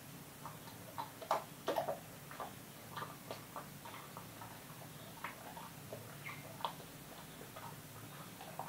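Golden retriever crunching and chewing pieces of a Greenies dental chew: irregular crisp crunches, loudest in a cluster about a second and a half in.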